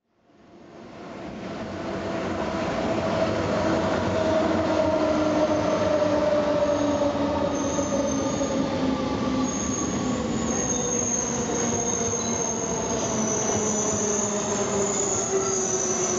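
Rhaetian Railway train of red coaches rolling slowly along a station platform: a steady rumble of wheels on rail with a slowly falling whine, and high-pitched wheel squeal that sets in about halfway through and grows stronger. The sound fades in over the first two seconds.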